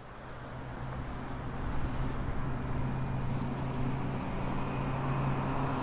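A steady mechanical hum with a constant low drone, fading in and growing louder over the first couple of seconds.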